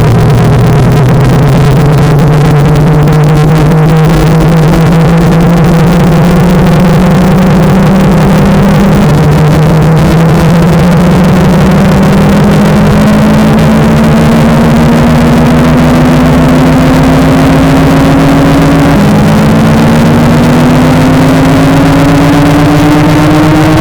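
Extremely loud, heavily distorted droning noise clipped at full volume, with low tones that glide slowly upward in pitch and jump abruptly about 9 and 19 seconds in.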